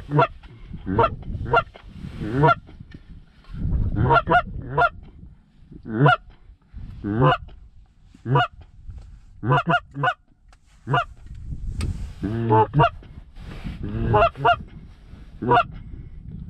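Canada goose honks: short calls over and over, singly and in quick runs of two or three.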